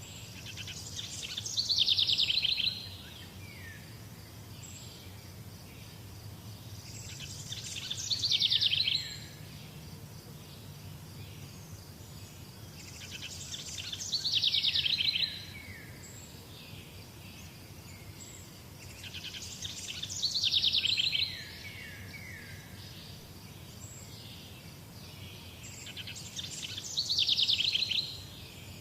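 A songbird repeating the same song about every six seconds, five times. Each song lasts about two seconds, swelling into a fast trill of high notes that drop in pitch towards the end.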